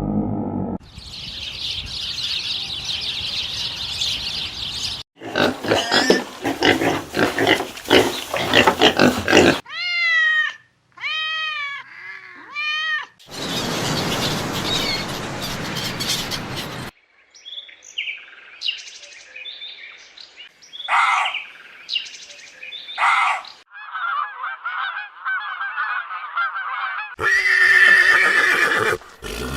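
A succession of different animal and bird calls, one short clip after another with sudden changes between them: rough repeated calls, a few arched pitched cries, scattered chirps, and a pitched call near the end.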